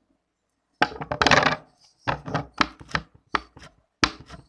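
Slime being slapped and pressed by hand: a loud squelchy burst about a second in, then a quick run of sharp sticky slaps and pops, several a second.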